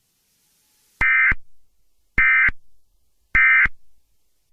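Emergency Alert System end-of-message signal: three identical short bursts of buzzy, warbling data tones, a little over a second apart, marking the close of the alert.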